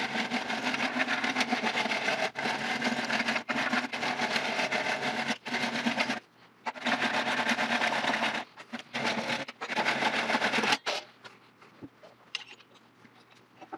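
Hand saw cutting through the wooden tenon at the base of a turned vase, in long runs of fast strokes broken by brief pauses. The sawing stops about eleven seconds in, leaving only a few faint clicks.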